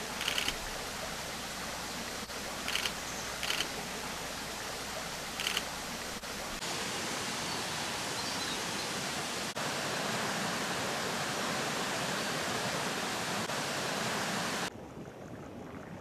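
Running water of a shallow mountain stream, a steady rushing hiss, with a few short sharp sounds in the first six seconds. It grows fuller and louder after about six and a half seconds, then drops suddenly to a much quieter background near the end.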